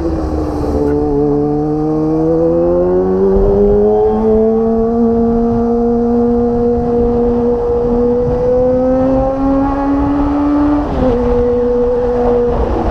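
Kawasaki ZX25R's four-cylinder engine, fitted with a Magna aftermarket exhaust, running as the bike is ridden. The revs dip at the start, climb over the first few seconds, hold steady, then drop sharply for a moment about eleven seconds in before settling again.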